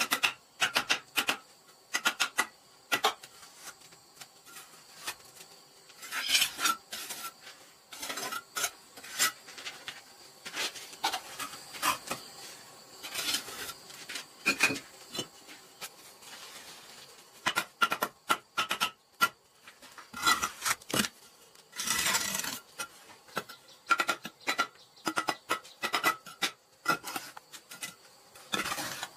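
Steel mason's trowel scraping mortar and tapping on hollow clay bricks while laying a brick column. The strokes are short and irregular: scrapes and clinks, with a few longer scrapes among them.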